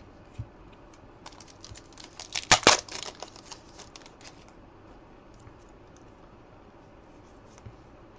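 Foil wrapper of a trading-card pack crinkling and tearing open: a run of dry crackles, loudest about two and a half seconds in, followed by a few faint clicks of cards being handled.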